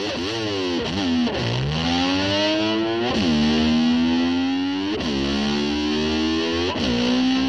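Distorted electric slide guitar opening a rock song. It swoops down and back up in pitch about five times, holding a note between swoops, to imitate a motorcycle revving.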